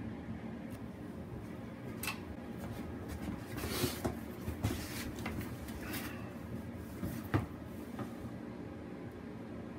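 Handling noise: a few scattered knocks and bumps with short bursts of rustling as a cardboard box and things around it are handled, the sharpest knock about seven seconds in.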